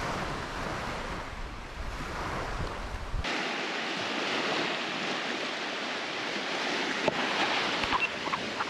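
Small waves washing onto the beach, with wind buffeting the microphone for the first three seconds. The wind rumble then cuts off abruptly, leaving only the surf.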